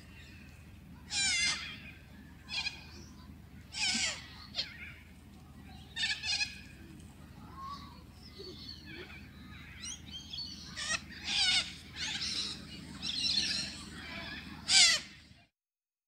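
Corellas (white cockatoos) screeching: about a dozen short calls, some in quick pairs, over a low steady rumble. The sound cuts off suddenly shortly before the end.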